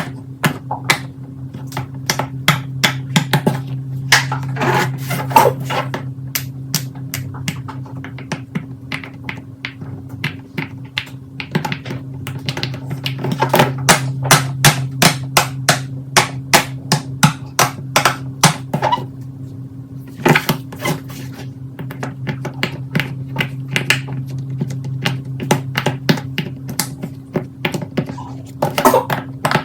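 Fidget toys being handled and pressed, giving quick runs of sharp pops and clicks with short pauses between, over a steady low hum.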